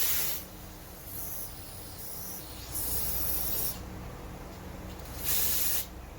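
Aerosol spray can hissing in a few short bursts as a brake line is sprayed clean.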